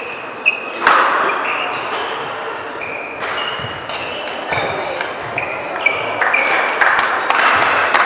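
Badminton rally on an indoor court: repeated sharp racket strikes on the shuttlecock and short, high squeaks of shoes on the court floor, over steady hall noise.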